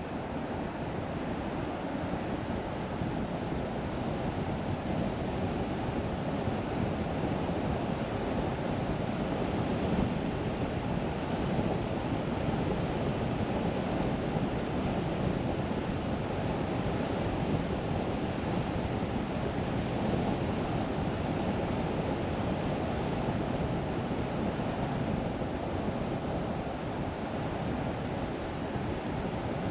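Steady road noise of a car driving: tyres on pavement and wind rushing past, an even rushing sound with no engine note standing out.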